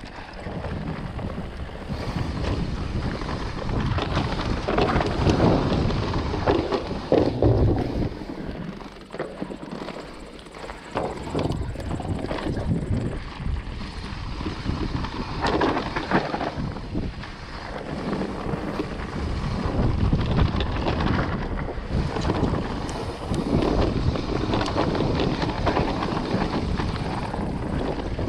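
Wind rushing over an action camera's microphone, mixed with tyre noise and irregular knocks and rattles from an Orbea Wild FS electric mountain bike running down a rough dirt trail. There is a briefly quieter stretch about ten seconds in.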